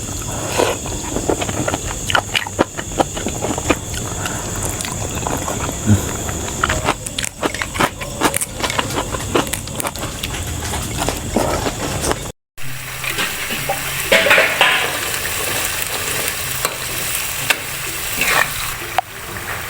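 Food sizzling as it fries in a pan, stirred with a utensil that scrapes and clicks against it many times. The sound drops out for a moment about twelve seconds in.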